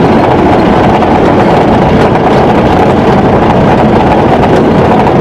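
Loud, steady rumble inside a moving vehicle's cabin as it drives over a rough, partly unpaved road: engine and tyre noise without letting up.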